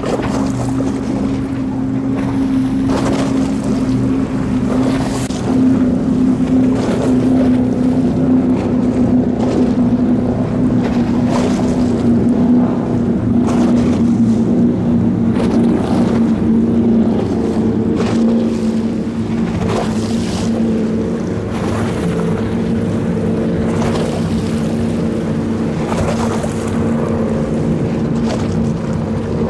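Powerboat engines running at speed: a steady, loud drone whose pitch sinks slowly, with a higher tone joining past the middle, over repeated short rushes of wind noise on the microphone.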